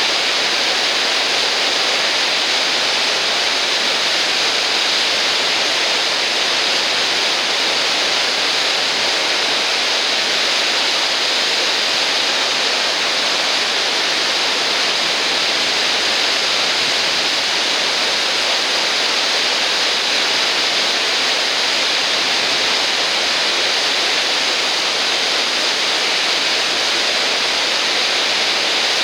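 River waterfall: water pouring steadily over a drop, a loud, even rush of white water that is strongest in the upper range.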